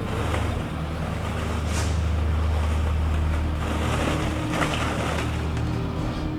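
Steady low rumbling drone with a noisy wash over it, like a machine or ambient sound bed, holding on without a break.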